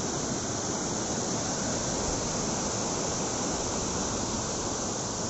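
Steady rushing of water pouring down a waterfall.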